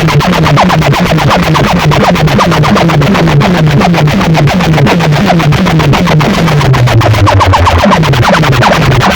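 Very loud electronic DJ music blasted from a sound-box speaker rig, with a fast repeating run of falling bass notes, about three a second, and short plucked synth notes above; the recording is overloaded.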